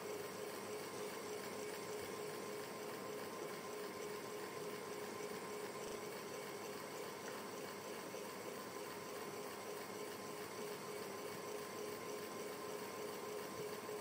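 Ceiling fan running at a steady speed: an even whoosh of moving air with a steady hum underneath.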